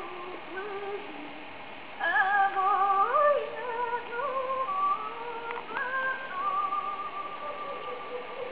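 Music: a woman's voice singing slow, long held notes with a wavering vibrato, loudest between about two and three and a half seconds in.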